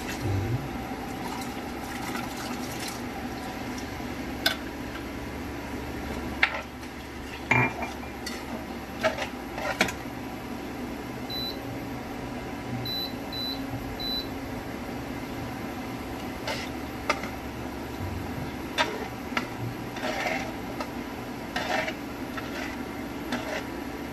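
Metal slotted spatula stirring a thick cream sauce in a non-stick frying pan, with scattered sharp clicks and knocks as it strikes and scrapes the pan, over a steady low hum.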